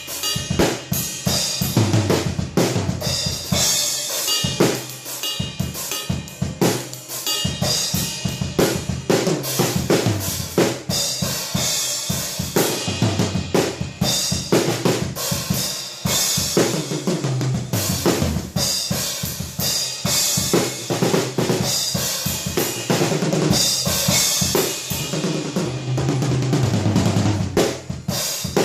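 Acoustic drum kit played in a fast, busy jam: kick drum, snare and cymbals hit in quick, shifting patterns.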